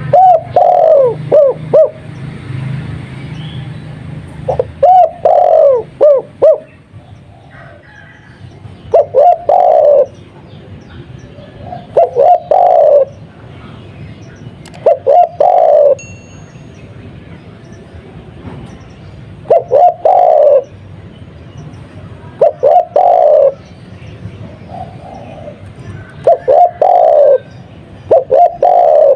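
Spotted dove (tekukur) of the Madura 'kuk 2' song type cooing: a short phrase of several coos repeated about every three seconds, nine times over.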